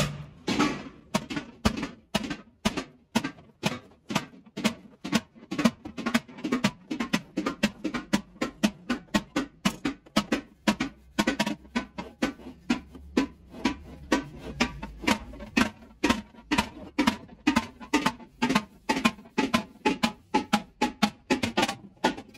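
Background music with a steady percussive beat of about three strikes a second, with some pitched instrument notes near the end.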